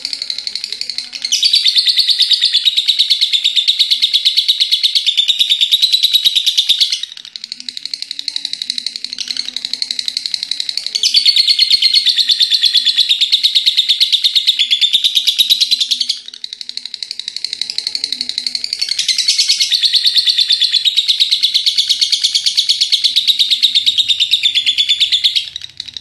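Lovebird singing its long 'ngekek' song, a rapid, unbroken high-pitched chattering trill. It comes in three loud bouts of about five to six seconds each, with softer chatter between them.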